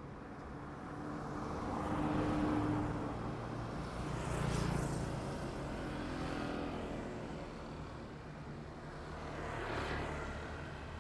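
Road traffic on a city street: about four vehicles pass one after another, each rising and fading away, with their engines' hum under the tyre noise.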